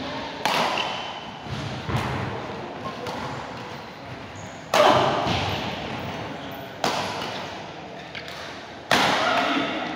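Badminton rackets striking a shuttlecock in a large hall: five sharp hits one to two seconds apart, each ringing on in the room's echo, the loudest a little before halfway.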